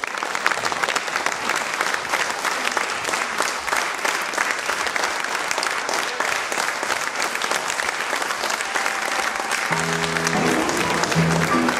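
Theatre audience applauding with dense, steady clapping. Near the end, music with sustained low notes comes in under the applause.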